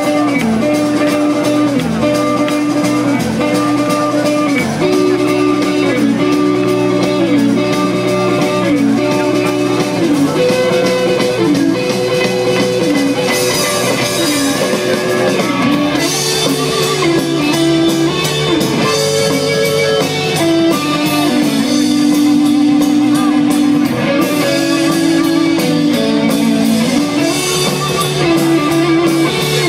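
Live rock band playing: electric guitars over bass and drum kit.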